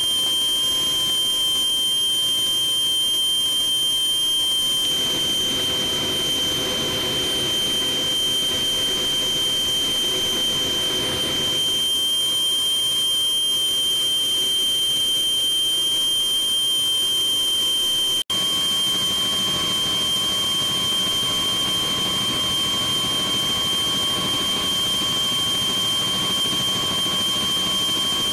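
Cabin noise inside a CH-46E Sea Knight in flight, from its twin turboshaft engines and rotor drive: a loud, steady rush with a constant high-pitched whine, broken by a split-second gap about two-thirds of the way through.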